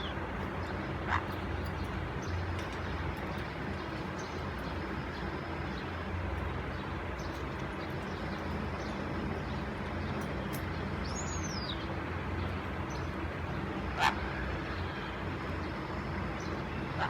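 A steady low hum runs throughout. About two-thirds of the way in comes one short whistled bird call that rises and then falls. A sharp click sounds near the end, with a fainter one early on.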